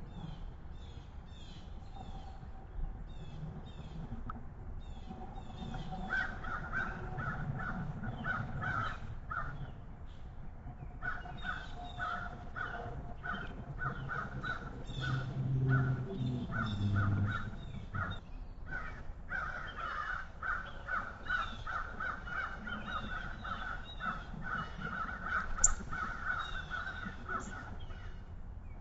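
Wild birds calling: long runs of quick, harsh repeated calls, several a second, over scattered higher chirps from small songbirds. A brief low rumble comes around the middle.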